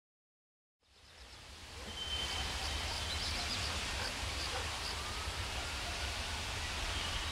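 Open-air ambience fading in about a second in: a steady rushing hiss with a low rumble, as from wind on the microphone, and a few short high bird chirps.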